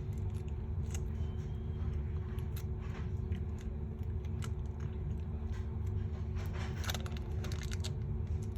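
Scattered light clicks and taps of small phone parts and tools being handled during reassembly, a few in quick succession about seven seconds in, over a steady low hum.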